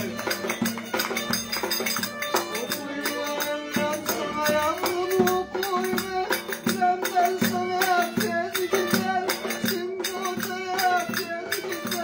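Violin held upright on the knee and bowed, playing a folk tune, with a steady percussive clicking beat alongside.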